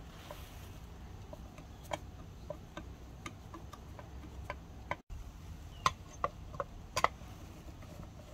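Flat-blade screwdriver working small screws on a 1959 Chevrolet speedometer head's metal housing, giving scattered light metallic clicks and ticks, a few louder ones about six to seven seconds in.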